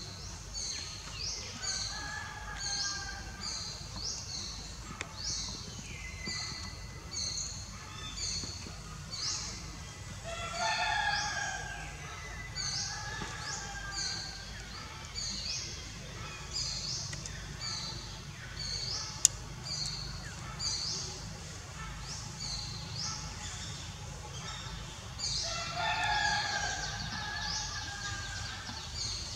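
Outdoor bird ambience: a bird repeating short high chirps more than once a second, with a rooster crowing twice in the distance, about a third of the way in and near the end. A single sharp click about two-thirds of the way through.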